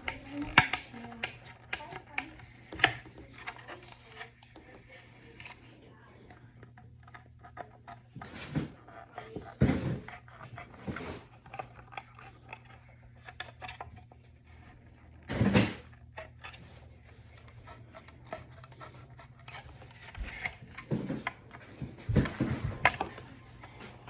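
Thin plastic armor parts being trimmed and handled: irregular clicks, crackles and scraping as the plastic is cut, flexed and snapped, with a louder crackling burst about two-thirds of the way through and a cluster of clicks near the end. A low steady hum runs underneath.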